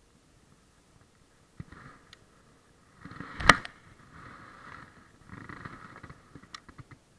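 Fleece sleeves rubbing and rustling against the camera microphone as an angler casts a fishing rod. The loudest sound is one sharp click about three and a half seconds in. A few small clicks of the fishing reel follow near the end.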